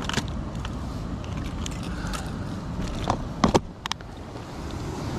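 Wind rumbling steadily on a body-worn camera's microphone, with a brief cluster of sharp knocks and clicks a little past three seconds in.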